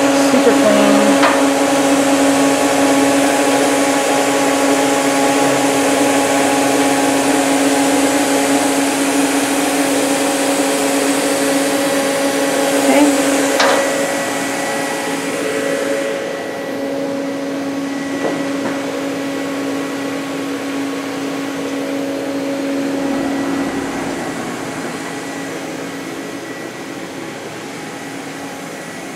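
Steady whirring hum of a powered-up DMG Mori Sprint 42 CNC Swiss lathe's motors and cooling fans, with a held hum tone. The hiss drops away about halfway through, and the sound grows gradually quieter.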